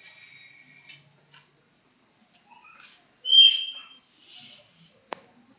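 Pet canary calling: a thin steady whistled note for about the first second, then a loud, bright call of about half a second some three seconds later. A short sharp tick comes near the end.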